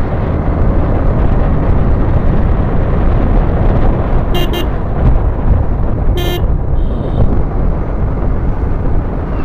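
Onboard riding noise from a Yamaha MT15 motorcycle on the move: steady wind rush and engine rumble. Short vehicle-horn beeps sound over it, two quick toots about four and a half seconds in and a single one near six seconds.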